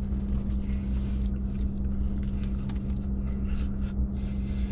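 Steady low hum of the idling truck heard from inside the cab, with quiet chewing of a breakfast wrap on top.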